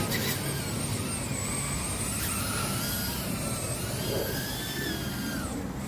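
Small FPV cinewhoop drone in flight: its brushless motors and ducted propellers whine steadily, the pitch sliding up and down as the throttle changes.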